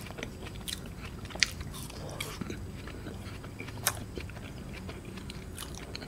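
Close-up eating sounds of ice cream being bitten and chewed: soft wet mouth noises with a few sharp clicks, the clearest about a second and a half in and near four seconds.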